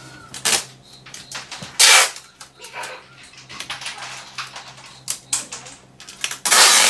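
Roll of clear adhesive tape pulled off in several short, noisy rips and pressed down onto a cardboard box, the loudest rips about two seconds in and near the end.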